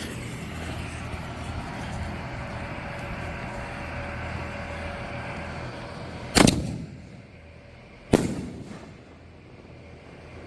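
A consumer canister firework shell fired from a mortar tube: a steady hiss, then a sharp launch bang about six seconds in, and the shell bursting in the air with a second bang under two seconds later.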